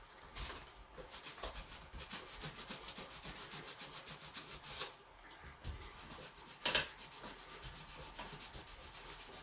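Sandpaper rubbed by hand over a painted plastic car body part, in quick, even back-and-forth strokes, scuffing down the paint toward the primer. The strokes pause briefly near the middle, and there is a single louder knock about two thirds of the way through.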